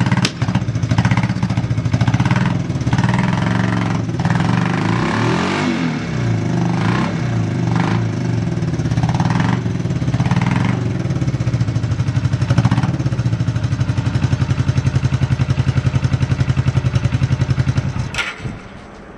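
Honda CB350 twin-cylinder motorcycle engine running, its revs rising and falling a few times, then settling to a steady idle, which the seller rates stable with no abnormal noises. It shuts off with a click near the end.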